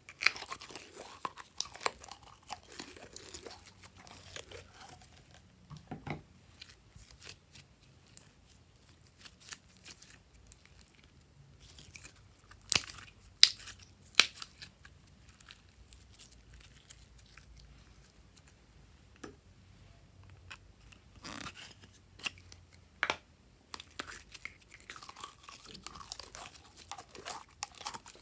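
Glitter slime squeezed, poked and stretched by hand, giving irregular sticky clicks and pops, with a few louder snaps now and then.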